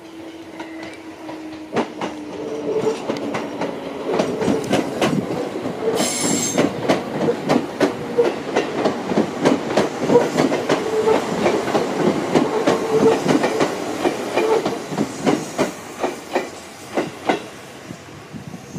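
Seibu 4000 series electric train arriving at the station and slowing, its wheels clicking over rail joints in a rhythm that builds and grows loud through the middle. A low whine falls in pitch near the start, and a brief high squeal comes about six seconds in.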